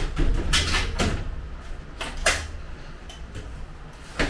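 Aluminium-framed frosted glass sliding door panel knocking and scraping against its frame as it is fitted in place: a few sharp knocks, the loudest about two seconds in.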